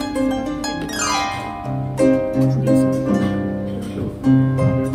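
Harp background music: a typical Japanese tune, plucked notes over a low bass line, with a downward glissando sweeping through the strings about a second in.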